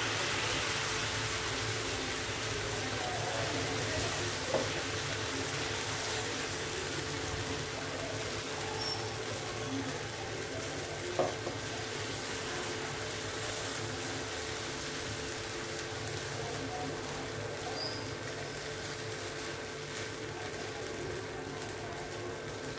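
Vegetable pancake batter sizzling steadily in oil on a hot flat tawa, easing off slightly as it cooks. A steel spoon spreading the batter taps lightly on the pan twice.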